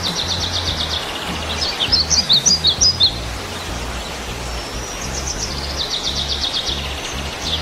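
A songbird singing: a rapid trill, then a quick run of separate chirps about two seconds in, and another long rapid trill near the end, over a steady noise hiss and the low pulsing beat of background music.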